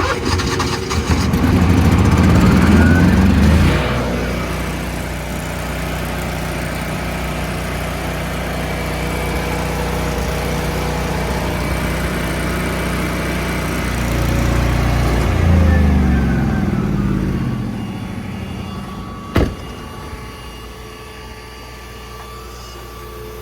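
Miller engine-driven welder's engine starting and running, its speed surging up in the first few seconds, settling to a steady run, then surging again before dropping to a lower, quieter speed; a single sharp click comes near the end.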